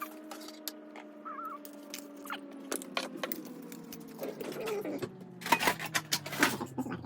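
Clicks and knocks of pipe fittings and parts being handled under a kitchen sink, getting busier in the second half, over a steady low hum that slowly drops in pitch.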